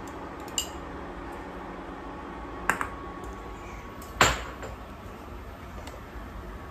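Spoon knocking against a frying pan three times, with the loudest, ringing knock about four seconds in, over a low steady background.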